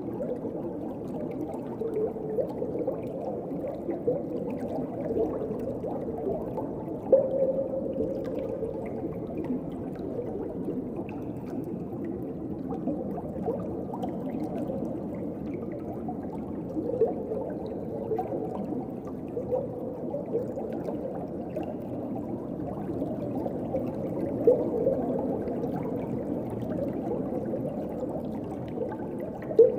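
Underwater ocean ambience: a steady, muffled wash of water with scattered short gurgling bubble sounds. The loudest gurgles come about seven seconds in and again near the end.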